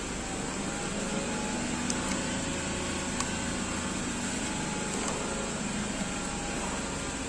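A steady mechanical hum with a few faint clicks from a screwdriver working on the metal case of the engine control module, about two and three seconds in.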